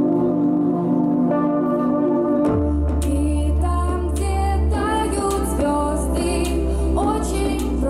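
A live pop song: a woman sings into a microphone over backing music. Held chords give way, about two and a half seconds in, to a deep bass and a beat, and her voice carries the melody above them.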